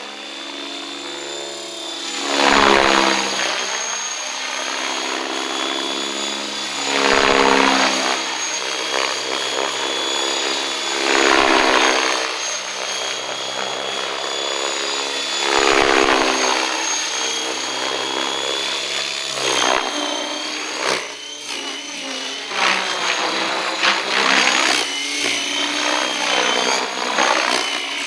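Electric RC helicopter, a Miniature Aircraft ION-X on a 14S battery, flown hard at high power: its rotor and high motor tone swell loudly about every four seconds as it goes past, the pitch bending each time. In the last third come quicker, uneven swells as it is thrown about.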